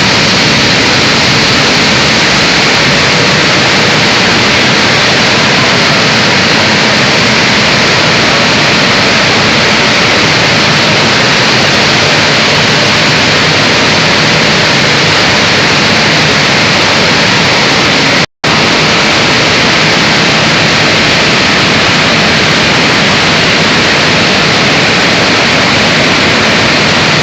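Rice milling plant machinery running: a loud, steady mechanical whir and rush of noise without a clear rhythm. It cuts out completely for an instant about two-thirds of the way through.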